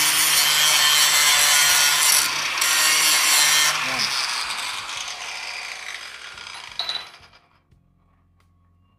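Angle grinder grinding rust off a steel plate to clean it for welding, a loud harsh grinding for about four seconds. It then comes off the metal and runs down, fading out and stopping about seven seconds in.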